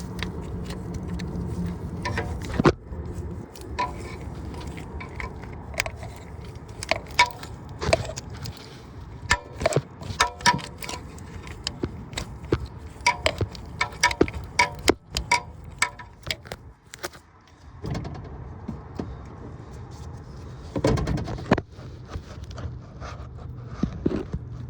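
Hand tools clicking and clinking on metal, sharp clicks singly and in short irregular runs, as a bolt holding the crankshaft position sensor is worked out, over a steady low hum.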